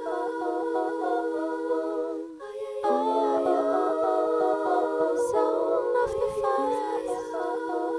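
Music: wordless layered vocals humming or singing a melody over a held low drone.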